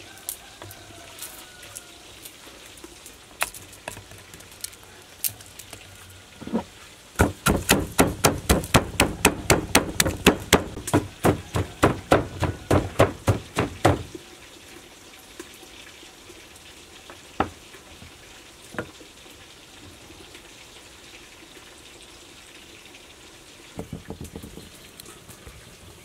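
Wooden pestle pounding garlic in a clay mortar: a steady run of quick knocks, about four a second, starting about seven seconds in and stopping about halfway through, with a few single knocks after.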